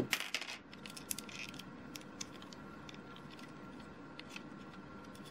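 Lego plastic bricks being handled and pried apart by hand: a cluster of small clicks and scrapes at the start, a few more a second or so in, then only scattered faint ticks.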